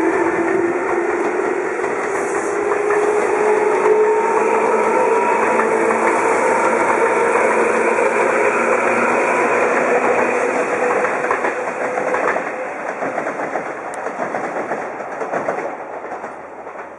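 Tobu 10030 series electric train pulling away, its motor whine rising in pitch as it gathers speed, with wheels clacking over the rail joints. It fades away over the last few seconds.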